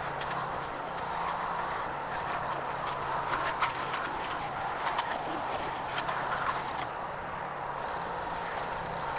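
Benchtop belt-and-disc sander running, its motor humming steadily while the wooden staves of a small barrel are pressed against the sanding belt. The belt gives a gritty rasp with sharp ticks as stave edges catch, easing briefly about seven seconds in as the piece is repositioned.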